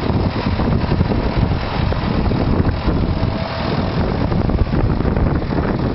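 Vintage tractor's engine running steadily as it draws close, pulling a multi-furrow plough.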